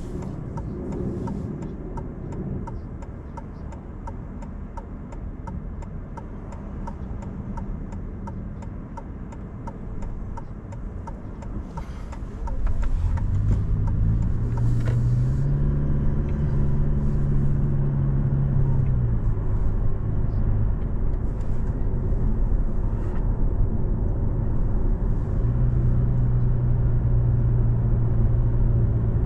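A car driving, with even ticking about twice a second for the first twelve seconds. About twelve seconds in, the engine and road noise get louder and the engine note rises, eases back, then holds steady.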